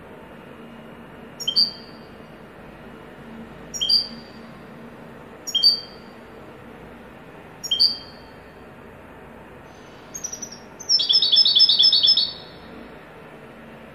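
European goldfinch calling with short, high two-part notes about every two seconds, four times. About ten seconds in comes a brief trill, then a quick, loud run of about seven ringing notes. This is the song style that goldfinch keepers call 'haddad' (blacksmith).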